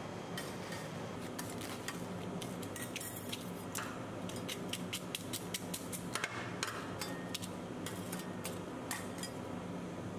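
Metal spatulas striking a steel ice-cream-roll cold plate: a run of sharp clicks, coming quicker and louder in the middle, over a steady low hum.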